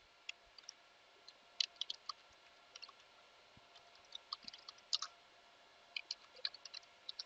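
Faint, irregular clicking of computer keyboard keys, in short runs of several quick keystrokes with pauses between.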